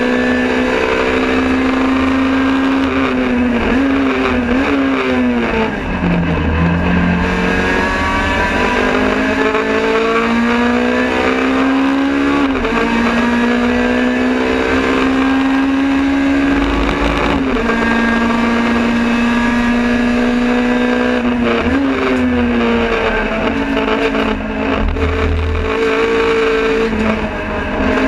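Honda Civic FD2 race car's engine, heard from inside the cockpit at racing speed. Its revs fall in steps with downshifts under braking about four to six seconds in, then climb through the gears with quick upshifts. More downshifts come near the end, over steady road and wind noise.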